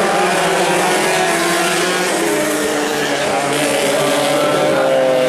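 Several racing motorcycles at high revs. Their engine notes overlap at different pitches, rising and falling as they accelerate and pass.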